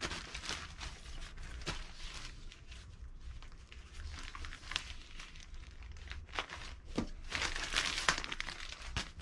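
Plastic mailer packaging crinkling and tearing as it is pulled open by hand: irregular crackles and rustles, busiest near the end.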